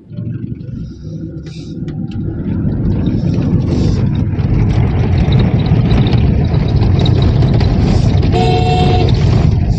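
Steady rumble of a car driving on a rough, dusty unpaved road, heard from inside the car, growing louder over the first few seconds. A vehicle horn sounds for about a second near the end.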